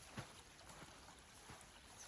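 Faint footsteps in snow, soft thuds about every two-thirds of a second, over a quiet hiss.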